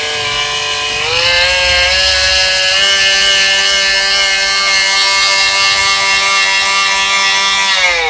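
Ryu RMT6 oscillating multi-tool's electric motor running free with a loud, high-pitched whine. It steps up in pitch about a second in and again a little later as the speed dial is turned up to level 3, then drops near the end as the speed is turned down. It is very noisy for a tool of this size.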